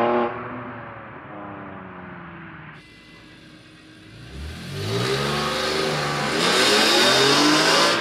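An E46 BMW 330i ZHP's M54 straight-six fading away with falling pitch as the car drives off. Then, from about four seconds in, an E46 BMW M3's S54 straight-six pulls away hard, its revs climbing and getting much louder.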